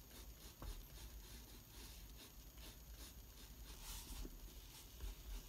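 Pencil drawing on paper: faint, short scratching strokes of the lead, with a brief louder scratch about four seconds in.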